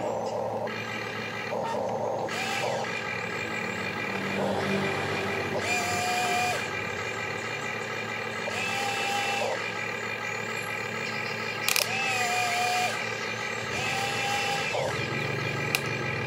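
Huina RC excavator's electric motors and gearboxes whining in short bursts of about a second, several times, as the boom and bucket move, over a steady mechanical hum.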